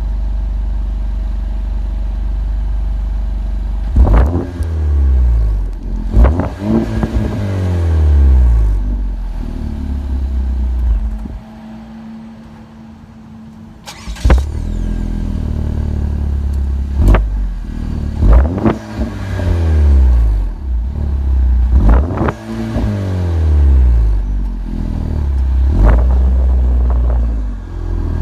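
2017 Chevrolet Cruze's Chevrolet Performance exhaust, idling and then revved repeatedly in quick blips that rise and fall back to idle. It drops quieter for a couple of seconds near the middle.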